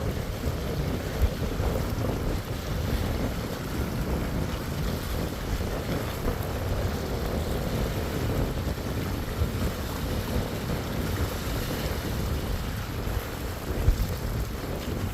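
Sea waves washing on the shore, with wind buffeting the microphone and a couple of brief knocks.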